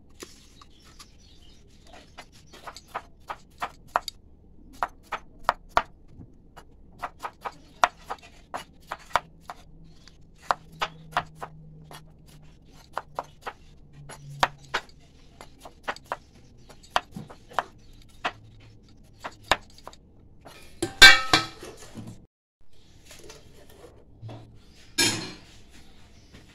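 Kitchen knife chopping bitter gourd into strips on a wooden chopping board: sharp knocks of the blade on the board, uneven, one or two a second. Near the end come a louder clatter and then a shorter one.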